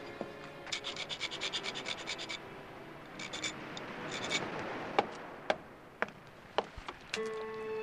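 Fast scraping strokes of a tool working at an iron window bar, then a few shorter bursts of scraping and scattered clicks. A held music note comes in near the end.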